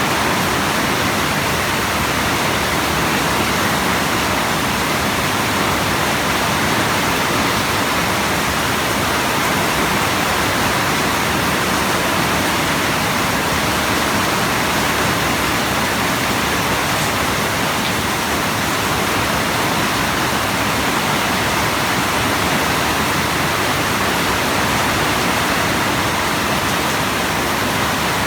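Steady rain falling, a dense even hiss with no single drops or other events standing out.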